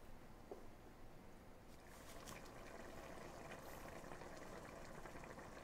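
Faint simmering of a shrimp, ham and mirliton stuffing mixture in its stock in a pot, a gentle bubbling with small pops that gets a little louder about two seconds in.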